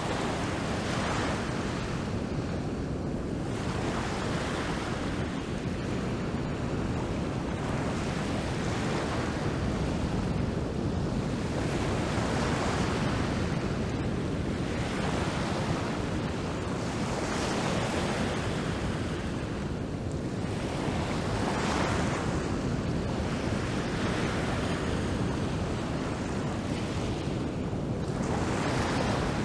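Rough surf breaking among rocks: a constant low rumble of the sea, with a rushing hiss of foam swelling up every few seconds as each wave comes in.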